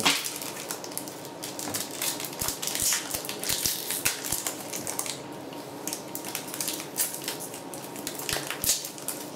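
Foil wrapper of a Pokémon TCG booster pack crinkling and crackling as it is handled and torn open, in a steady run of irregular crackles.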